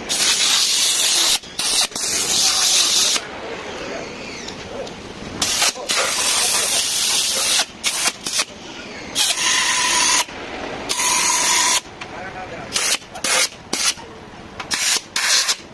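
Compressed-air blow gun blasting dust out of a scooter's opened-up body. It comes in repeated blasts of hiss that start and stop sharply: long blasts at first, then shorter, quicker ones.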